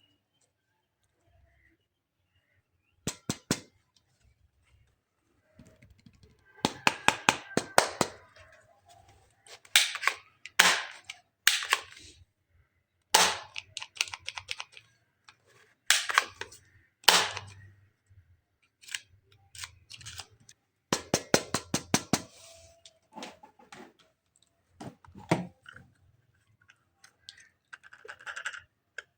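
Plastic toy parts clicking and snapping in quick runs of sharp clicks, several bursts with short pauses between them.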